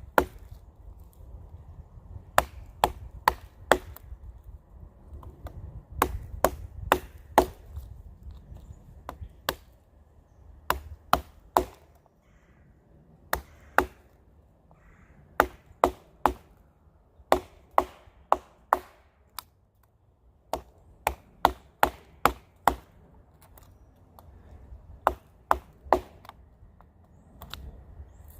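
Sharp, repeated wooden knocks in quick groups of two to four with short pauses between: a pocket knife being struck into a dead standing tree's trunk to cut through it and fell it.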